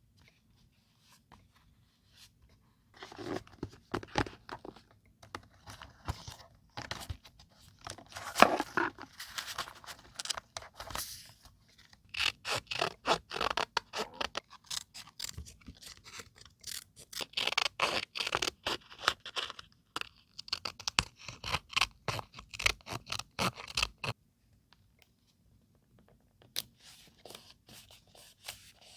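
Close-up paper crafting sounds: paper being scraped and handled in clusters of quick scratchy strokes and light clicks. The strokes stop for a couple of seconds about two-thirds of the way through, then come back fainter.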